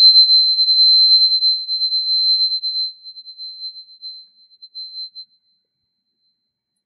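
A purification tuning fork, of the kind used for cleansing a space or power stones, rings with one high, pure tone after being struck. The tone starts loud and slowly fades, dying away about five seconds in.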